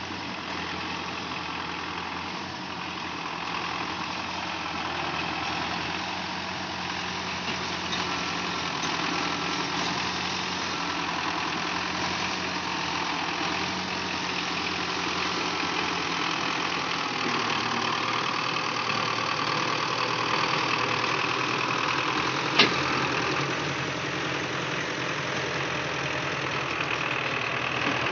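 Diesel farm tractor pulling a trolley heavily loaded with sugarcane, its engine running steadily and growing louder as it comes closer. A single sharp click sounds about three-quarters of the way through.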